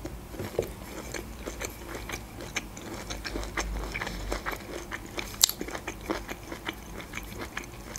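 A person chewing a mouthful of broccoli close to the microphone: many short, irregular mouth clicks, with a louder one about five and a half seconds in.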